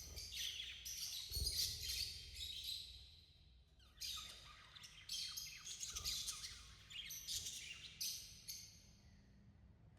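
Budgerigars chirping in rapid bursts of high chirps, with a short lull about three seconds in and another near the end.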